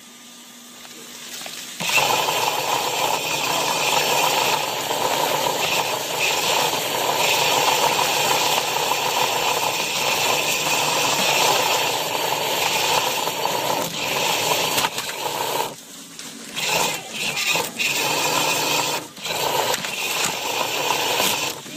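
Small soccer robot's electric drive motors and gears running with a rattle from its metal chassis, heard close up. It starts about two seconds in, runs steadily, then stops and starts several times in short spurts near the end.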